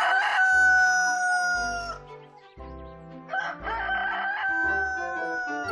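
A rooster crowing twice, each crow ending in a long held note that sags slightly in pitch. The first finishes about two seconds in; the second starts a little after three seconds. Underneath runs background music with a slow, plodding bass line.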